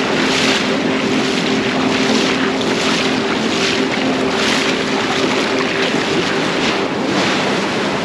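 Bare feet wading through shallow surf, water splashing with each step about every three quarters of a second over the steady wash of the shallows.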